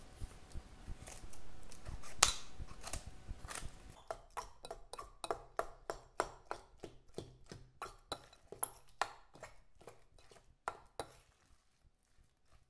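Hands mixing mashed potato filling in a glass mixing bowl: a run of quiet, even clicks and knocks, about three a second, that stops about a second before the end.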